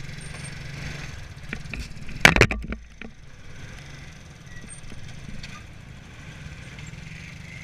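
Small motorbike engine running steadily at low revs, with one loud clattering clunk a little over two seconds in.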